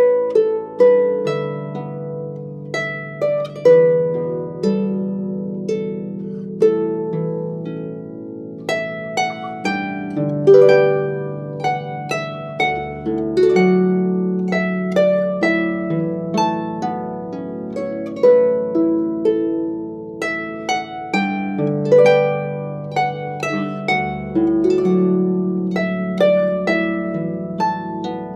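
Starfish Mamore Celtic harp (clarsach) played solo: a slow lullaby melody of plucked notes that ring on over held bass notes.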